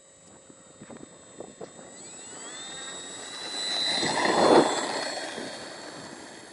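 Motor and propeller of an RC T-28 Trojan model airplane. Its high whine rises in pitch and grows louder to a peak about four and a half seconds in, then fades as the plane moves away.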